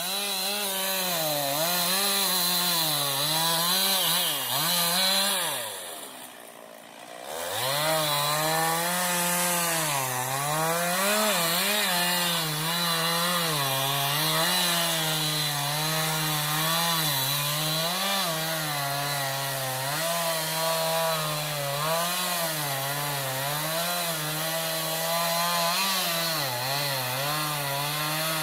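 Two-stroke chainsaw running at high revs and cutting wood, its pitch sagging and recovering as the chain loads up in the cut. About six seconds in it drops back briefly, then revs up again and cuts on.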